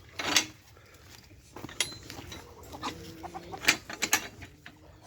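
Chickens clucking, with a short rustling burst near the start and a few sharp clicks.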